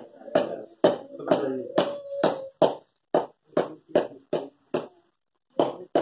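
A voice singing over sharp rhythmic percussion beats, about two a second. The singing stops about two and a half seconds in, and the beats carry on alone, coming faster, before a short pause near the end.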